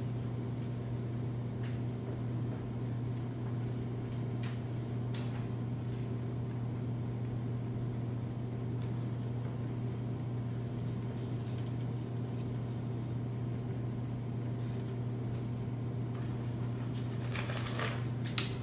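Steady low background hum with room noise, a few faint scattered clicks, and a brief rustling near the end.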